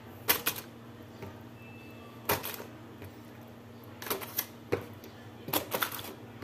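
Aluminium foil crinkling and rustling in short bursts as marinated chicken wings are set down one by one into a foil-lined air fryer basket, about five times, over a low steady hum.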